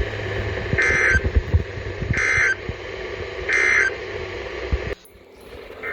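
NOAA Weather Radio end-of-message data code: three short, harsh warbling digital bursts about a second and a half apart, the SAME 'NNNN' end-of-message signal that closes a weather alert, over steady radio hiss. The audio drops out abruptly near the end.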